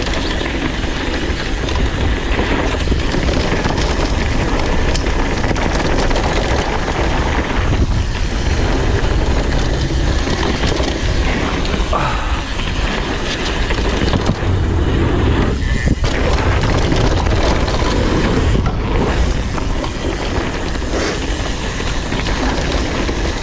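Mountain bike descending a downhill trail: a steady rush of wind on the microphone mixed with rattling trail noise from the bike.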